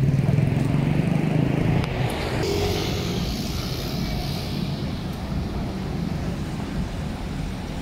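City road traffic: a vehicle engine running close by, strongest for the first two seconds, then the steady noise of passing cars.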